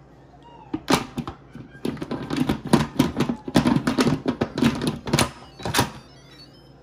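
Instant Pot Duo lid being set on the pot and twisted shut: a couple of knocks about a second in, then a few seconds of dense clattering, scraping and clicking of the lid against the rim, stopping about six seconds in.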